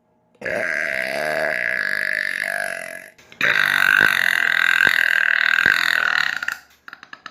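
A woman burping twice, two long drawn-out burps of about two and a half to three seconds each, with a short break between them.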